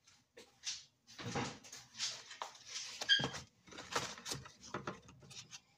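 Kitchen handling clatter: irregular knocks, bumps and rustles of things being moved about, with one sharp clink that rings briefly about three seconds in.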